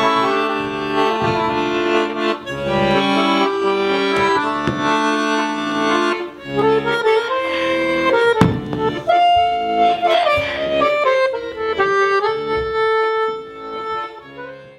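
Piano accordion playing a tune: a melody over held chords and changing bass notes, fading out near the end.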